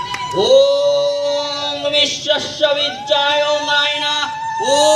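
A man chanting a Hindu mantra in a sung, drawn-out style: a string of long held notes, each sliding up at its start.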